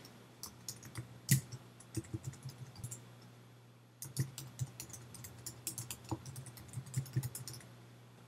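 Typing on a computer keyboard: two runs of keystrokes with a pause of about a second between them.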